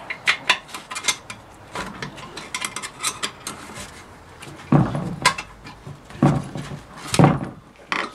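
Metal internal parts of a Ford 5R55S automatic transmission clinking and clanking against each other and the case as they are worked loose by hand: a run of quick light clicks, then a few heavier knocks about five, six and seven seconds in.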